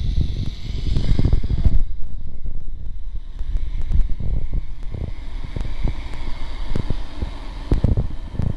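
Wind rushing and buffeting on the microphone of a rider speeding down a zipline, in uneven gusty swells with no clear tone.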